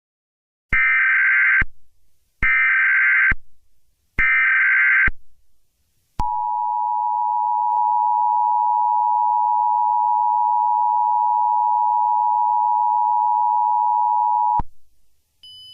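Emergency Alert System tones: three short screeching bursts of SAME header data, each just under a second with about a second between them, then the two-tone attention signal held steady for about eight seconds before it cuts off.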